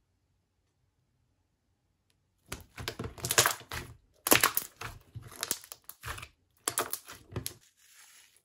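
Clear orange Elmer's Gue slime with star add-ins squished and pressed between the hands, giving a run of wet crackling squelches for about five seconds after a near-silent start. Near the end there is a faint rustle as add-ins pour from a plastic bag.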